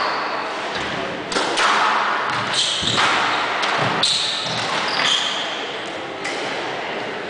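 Squash rally: the ball knocks sharply off rackets and walls about once a second, mixed with short high squeaks of court shoes on the wooden floor, in a reverberant hall.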